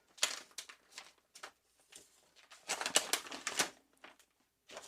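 Hands handling keyboard-kit packaging and parts: scattered light clicks, taps and rustles, with a busier cluster about three seconds in.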